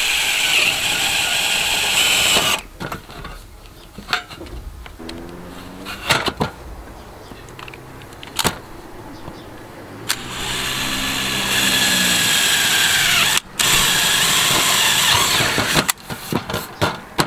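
Cordless drill boring holes into the edge of a solar panel in-roof mounting tray. It runs for about two and a half seconds at the start. A few light knocks and clicks follow. It runs again from about ten seconds in to about sixteen, stopping briefly once in the middle.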